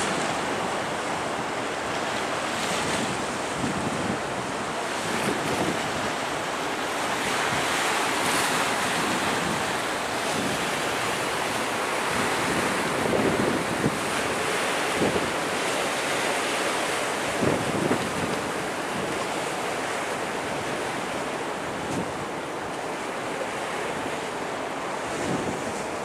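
Wind buffeting the microphone over the steady rush of choppy sea waves washing onto a flooded shoreline at high tide.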